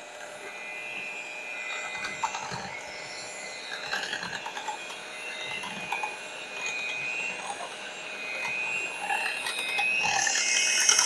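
Electric hand mixer running on low with its beaters whirring through a thin egg-and-milk flan mixture in a glass measuring cup; a steady whine that gets louder over the last few seconds.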